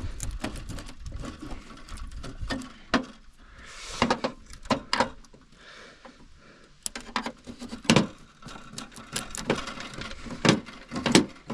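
Flathead screwdriver prying at the rivets of a snowmobile's rear bumper: irregular clicks, taps and scrapes, with sharper knocks about eight seconds in and near the end.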